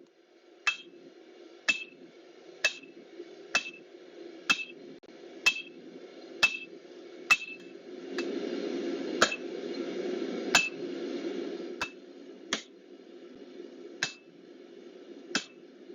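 Hand hammer striking hot steel bar stock on an anvil to isolate the leaf section of a forged leaf key ring. The blows come about once a second, each with a short metallic ring, and grow sparser in the last few seconds. A steady low rumble runs underneath.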